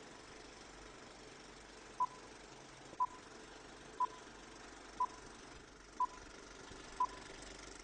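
Film-leader countdown sound effect: six short, high beeps, one each second, beginning about two seconds in, over a faint steady hiss.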